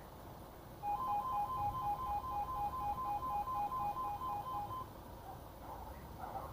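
UK level crossing audible warning alarm sounding a rapid two-tone warble: two pitches alternating in quick pulses. It starts about a second in and stops near five seconds. It sounds because another train is approaching while the barriers stay down.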